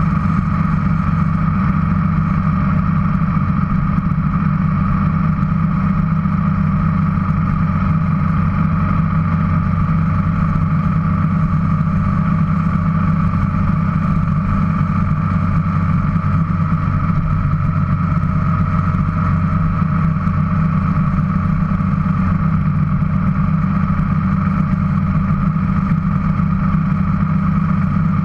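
Motorcycle engine running steadily at cruising speed, with wind and road noise, heard from a camera mounted on the bike behind its windscreen.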